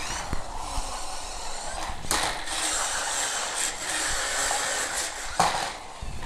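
1:16 scale toy RC stunt monster truck in its spin mode: small electric drive motors whining and plastic tyres scuffing as it whirls and tumbles on a laminate floor, with sharp knocks about two seconds in and again near the end as it tips and lands.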